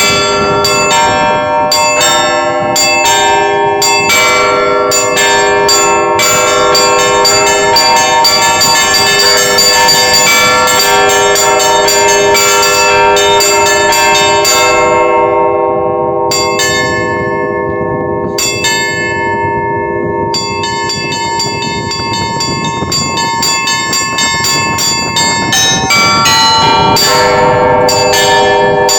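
Russian Orthodox monastery bells rung in the "Petersburg" zvon pattern to call to the all-night vigil: small bells struck in rapid patterns over the steady strokes of larger bells. About fifteen seconds in the small high bells fall silent for a few seconds, leaving the lower bells, then the quick high ringing comes back and the full set joins again near the end.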